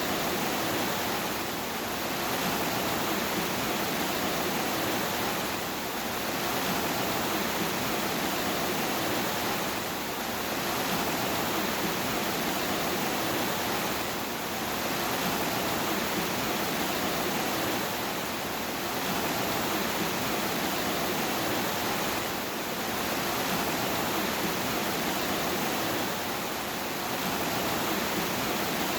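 Steady heavy rain, a dense even hiss without separate drops or thunder, dipping slightly about every four seconds.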